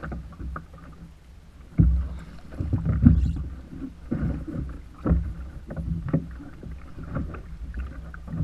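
A hooked striped bass thrashing and splashing in the water beside a kayak as it is landed, with irregular splashes and knocks, the loudest about two and three seconds in.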